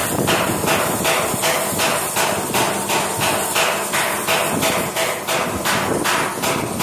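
Rapid, evenly spaced metal strikes, about four a second, over a steady hiss, from welding work on a bathtub.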